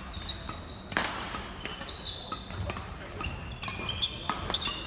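Badminton doubles rally: rackets smacking the shuttlecock several times, the sharpest hit about a second in, with shoes squeaking in short chirps on the wooden court floor.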